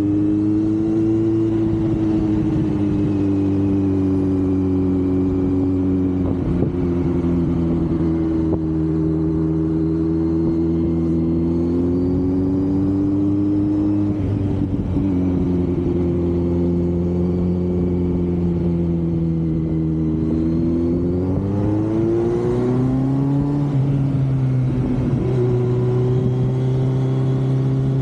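Kawasaki Z900's inline-four engine and exhaust under way, holding a steady note that sags and climbs gently with the throttle. Near the end it climbs sharply, then drops and settles on a new steady note. Wind noise on the on-bike microphone.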